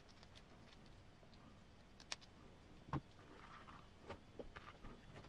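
Quiet handling of a plastic RC truck transmission housing during assembly: faint clicks as a hand screwdriver works a screw into it, a single soft knock about three seconds in, and a few light taps near the end.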